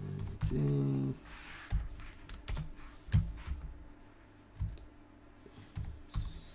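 Slow, irregular typing on a computer keyboard: single keystrokes clacking one at a time with gaps of up to a second between them.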